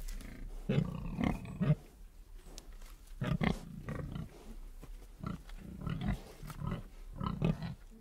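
Pigs grunting in short, low bursts: a run of grunts in the first two seconds, then scattered single grunts and a few more near the end.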